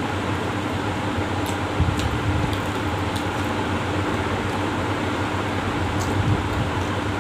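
Steady whir of an electric fan with a low hum, with a few faint clicks and smacks of eating by hand from a steel plate.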